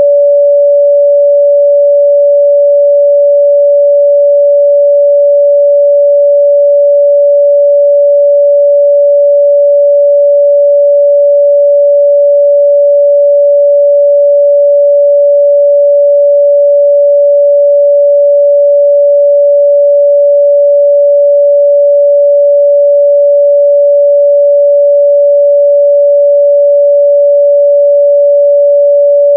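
A continuous pure sine-wave test tone at 574 Hz, held at one steady pitch and loudness throughout.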